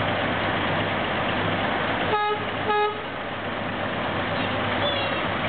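Two short horn toots about half a second apart, each a single steady note, sounded over the steady running of truck engines idling in a line.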